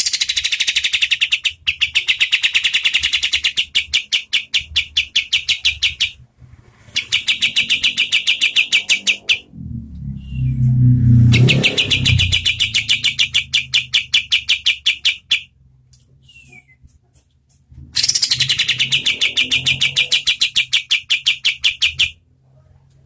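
Kapas tembak, a bulbul kept as a songbird, singing long rapid-fire bouts of fast repeated notes at medium speed, each bout lasting several seconds with short pauses between. A low rumble sits under the song for a couple of seconds near the middle.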